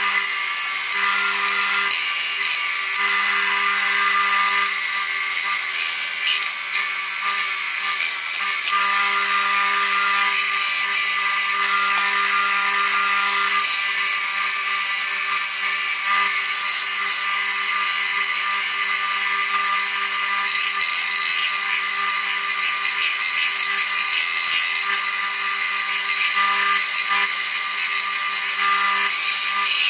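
Belt grinder running with a steady motor hum, while the steel head of a 4 lb ball-peen hammer is pressed against the abrasive belt, giving a continuous hissing grind as rust is ground off the head.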